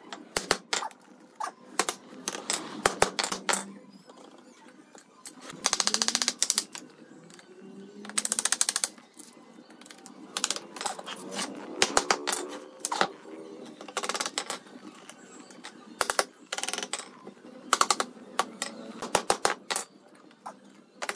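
Hammer tapping wooden slats into a wooden frame: a string of sharp irregular knocks, with two short runs of very rapid taps, about a quarter and about two fifths of the way in.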